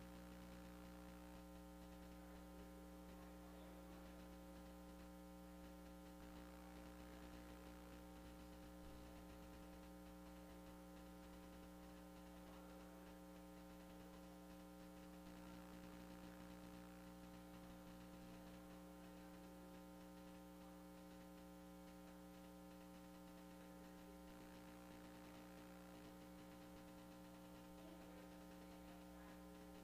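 Near silence with a faint, steady electrical hum made of several held tones.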